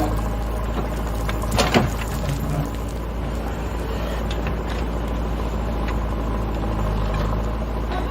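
Diesel engine of a JCB backhoe loader running steadily under work, with one sharp metallic clank about a second and a half in.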